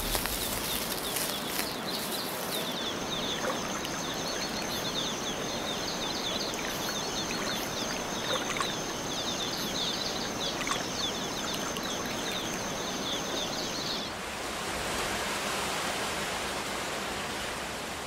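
Tropical forest ambience: a steady hiss with many quick, high chirps and a thin, steady high whine over it. About fourteen seconds in, the chirps and whine stop and a brighter, even hiss goes on alone.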